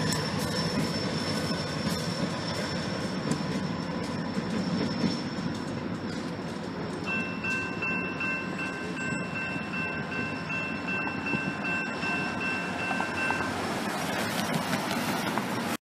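Norfolk Southern diesel locomotive running on down the track, its engine and wheel rumble slowly fading as it moves away. A thin, steady high squeal comes in about halfway through, and the sound cuts off abruptly just before the end.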